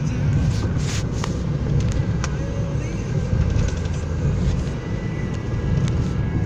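Road and engine noise inside a moving car's cabin: a steady low rumble, with a few light clicks in the first couple of seconds.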